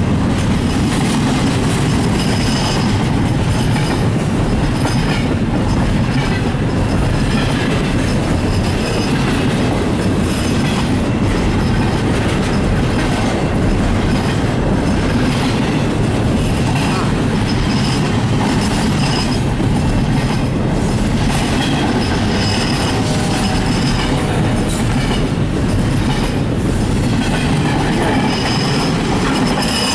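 Double-stack intermodal container cars of a freight train rolling past at speed: a loud, steady rumble of steel wheels on rail.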